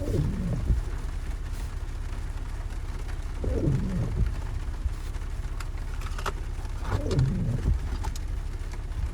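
An off-road vehicle's engine runs low and steady while rain falls. A falling sound about a second long repeats roughly every three and a half seconds, with a few sharp ticks between.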